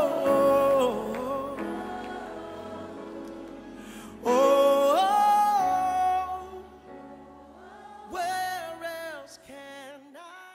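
Gospel music with singing: held, swelling sung phrases over accompaniment. The loudest phrase comes in the middle, and the music dies away near the end.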